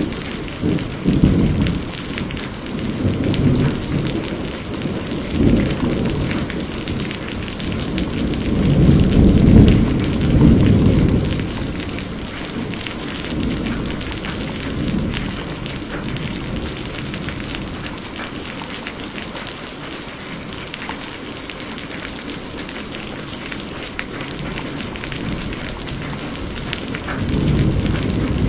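Steady heavy rain with rolls of thunder rumbling repeatedly over it, the biggest roll about a third of the way through. The thunder eases off in the second half, leaving mostly rain, and a new rumble builds right at the end.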